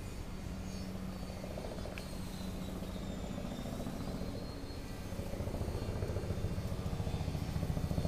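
A motor running steadily with a rapid, even flutter, growing louder about five seconds in.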